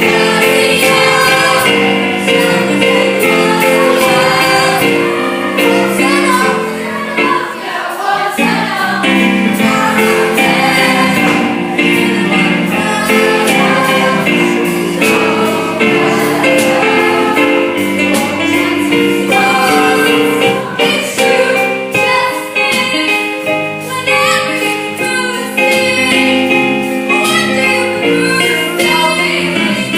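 A group of voices sings a musical-theatre number together over instrumental accompaniment.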